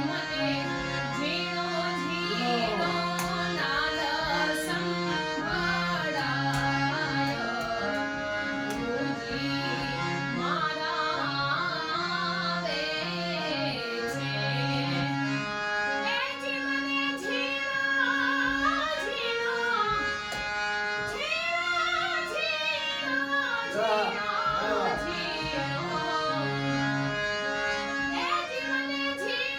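A woman singing a Gujarati devotional bhajan over held chords from a sustained instrumental accompaniment; the singing wavers and ornaments the melody throughout.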